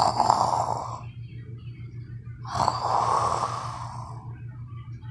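A person snoring loudly: two long, noisy snores about two and a half seconds apart.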